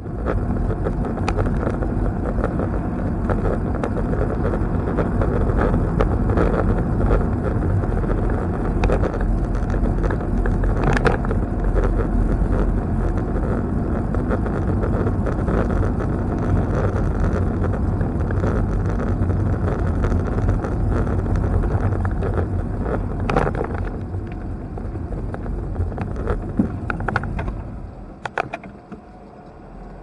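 Car driving, heard from inside the cabin: a steady rumble of tyres and engine with scattered knocks and rattles. It eases off about three-quarters of the way through and drops sharply near the end as the car slows.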